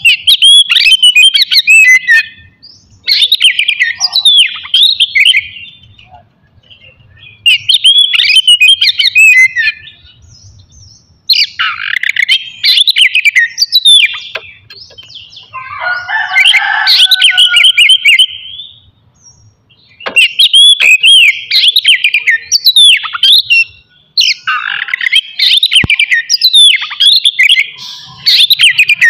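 Oriental magpie-robin (kacer) singing loud, fast, varied whistled phrases in bursts of one to three seconds with short pauses between them. About halfway through comes a lower, rougher passage.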